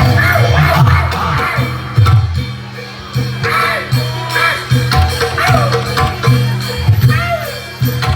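Loud live accompaniment music for a barongan dance: percussion and repeated low notes under a melody line that bends up and down in pitch.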